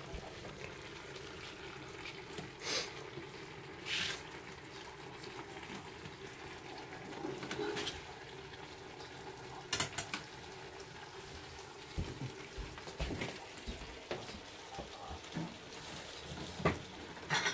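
Kitchen cooking sounds: a steady low hum under scattered clinks and knocks of utensils and cookware, with a few short hissing bursts like liquid or a sizzle.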